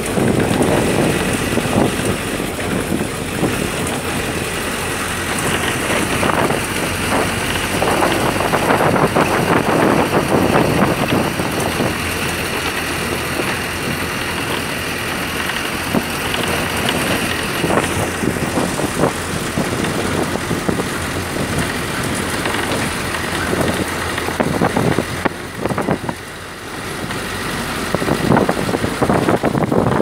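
Bus driving along a road, heard from inside the cabin: steady engine and road noise with frequent rattles, briefly quieter near the end.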